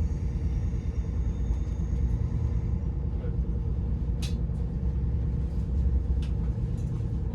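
Interior rumble of a CrossCountry Voyager diesel train running, with a steady hum under it. There are a couple of short sharp clicks about four and six seconds in.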